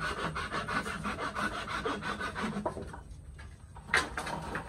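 Wooden slats rubbing and scraping against each other in a fast, even rasp that eases off about three seconds in, followed by a single sharp wooden knock near the end.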